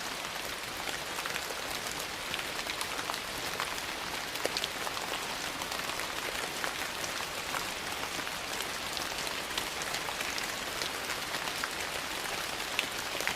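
Steady rain mixed with a crackling wood fire: an even hiss with scattered sharp pops and ticks.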